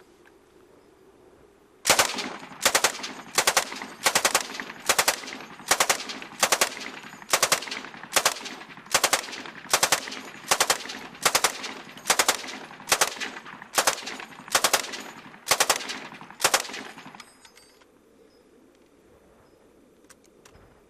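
Stoner 86 (ARES LMG-1) 5.56 mm belt-fed light machine gun firing from its bipod. It opens up about two seconds in and goes off about nineteen times at an even pace, roughly one report every 0.8 s, before stopping near the end.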